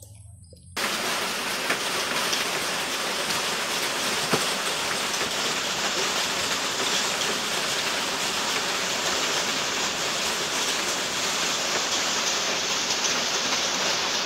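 Heavy rain, a loud steady hiss that starts abruptly about a second in.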